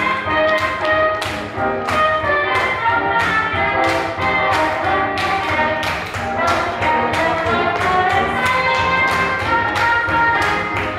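Swing jazz music with horns playing over a steady beat.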